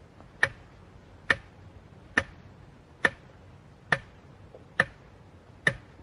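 A clock ticking slowly and evenly, one sharp tick a little under once a second, seven ticks in all.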